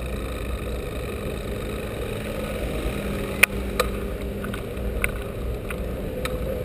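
Steady rumble of a bicycle riding along a city road, heard through a GoPro mounted on the bike: wind on the microphone and road noise. About five sharp clicks or rattles come in the second half, the loudest about three and a half seconds in.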